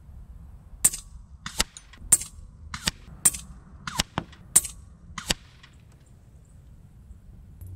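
Daystate Pulsar PCP bullpup air rifle firing a quick series of about eight sharp shots, a little over half a second apart, then stopping.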